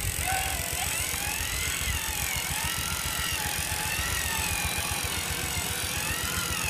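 Radio-controlled 6x6 truck's electric motor and gearbox whining, the pitch rising and falling over and over as the throttle is worked, over a steady rumble from the drivetrain and tyres.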